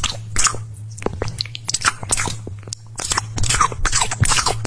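Crunchy food being bitten and chewed: a rapid series of crisp crunches, two or three a second, over a steady low hum.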